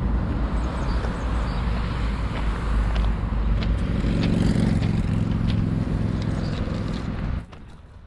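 Freight train running: a steady low rumble with a droning note and scattered clacks and knocks. It cuts off suddenly near the end.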